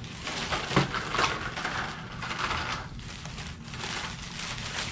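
Packaging rustling and crinkling as a box of parts is unpacked by hand, with a few sharper crackles about a second in.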